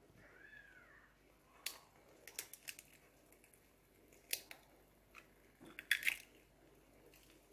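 Faint, scattered light clicks and taps: one a little under two seconds in, a few more just after, one about four seconds in, and a louder short cluster about six seconds in. A faint short chirp-like sound comes near the start.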